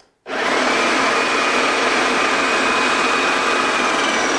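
Wagner 250 M airless paint sprayer's electric piston pump switched on, starting abruptly and running steadily with a steady high whine as it builds pressure in the gun and 15 m hose.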